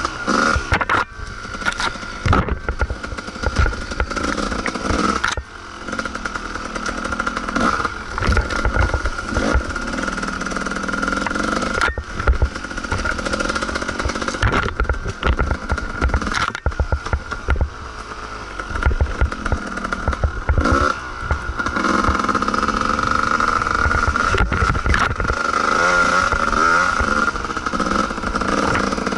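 Kawasaki KDX220's two-stroke single-cylinder dirt bike engine, heard from the bike itself, its pitch rising and falling as the throttle is worked along a rough trail. The bike's chassis rattles and knocks over the bumps.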